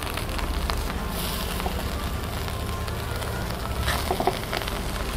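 A steel spoon stirs and scoops cooked biryani rice in a metal pot, making light scraping and scattered clicks against the pot. A faint crackle and a steady low hum run underneath.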